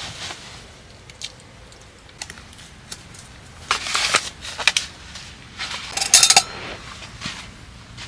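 Camping kitchen gear being handled: rustling fabric and scattered clicks and clatter, in two busier bursts about four and six seconds in, the second with a brief metallic clink.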